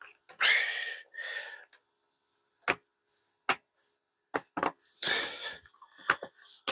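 Plastic bottom cover of a Lenovo Legion Slim 5 laptop being pressed down and snapped back onto the chassis by hand. There are scraping rubs in the first couple of seconds and again about five seconds in, and several sharp clicks as the cover's clips catch.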